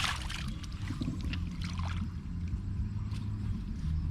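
Water splashing and dribbling over a steady low hum, with a larger splash right at the start.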